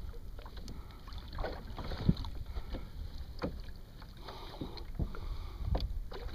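Kayak moving on open sea: water splashing and slapping against the hull with irregular knocks, over a low wind rumble on the microphone.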